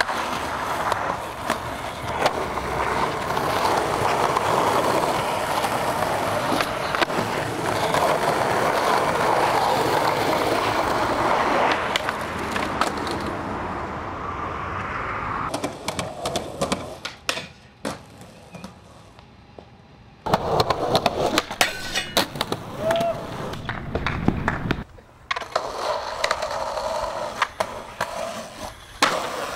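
Skateboard wheels rolling over rough pavement, a steady rumble for about the first dozen seconds. After that come a series of sharp board pops, clacks and landings, with a quieter stretch between them, before the rolling resumes near the end.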